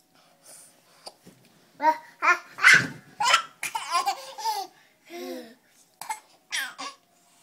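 Baby laughing and squealing in a run of short giggles that start about two seconds in.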